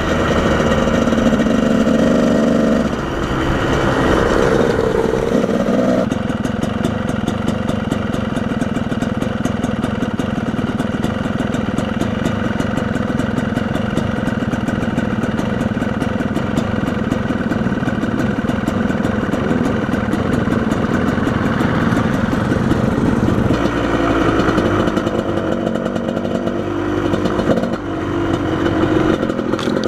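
Motorcycle engine running as it is ridden off-road, its note shifting as the revs change a few times: near three seconds in, again near six, and again past twenty-three seconds.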